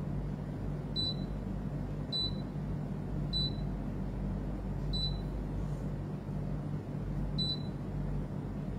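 Five short, high electronic beeps at uneven intervals over a steady low hum: an air conditioner beeping as it takes button presses from its remote, set to cool a room that feels too warm.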